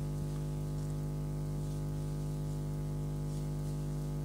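A steady low electrical hum with a faint hiss under it. The crocheting itself makes no distinct sound.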